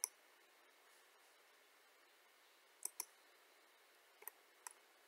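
Sparse computer mouse clicks over near silence: one at the very start, a quick pair about three seconds in, and two fainter ones near the end.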